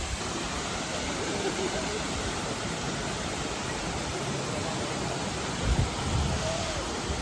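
Multnomah Falls pouring down: a steady, even rush of falling water. A couple of brief low thumps come near the end.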